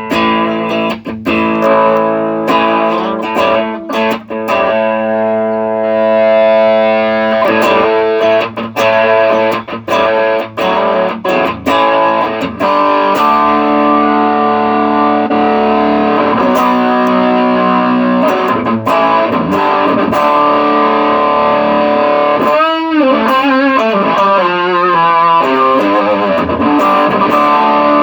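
Electric guitar played through a TC Electronic Nova Drive overdrive/distortion pedal: picked and sustained chords with a driven tone, testing the pedal after its gain and volume pots were replaced. Late on, a few notes waver and bend in pitch.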